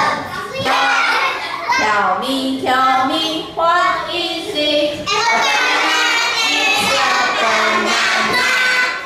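A class of young children singing together in unison, the melody stepping between held notes.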